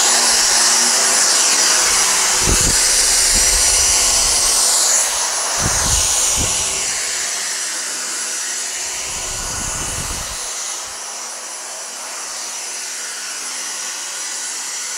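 Dyson V6 cordless stick vacuum running on its high setting: a steady high-pitched motor whine over the rush of suction. Low thumps come and go through the first ten seconds, and the sound gets a little quieter after about five seconds.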